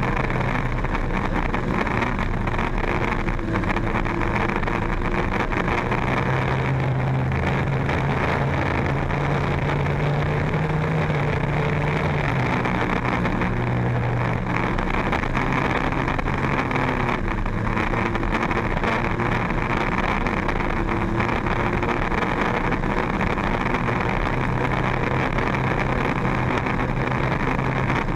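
Racing powerboat's engine running at steady high speed, with water rushing and churning in the wake. The engine note lifts slightly about ten seconds in and settles back.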